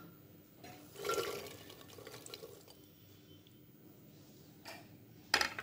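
Soaked, drained kidney beans tipped from a glass bowl into a pressure cooker: a wet slide and patter of beans about a second in, then a few small clatters. A sharp knock near the end.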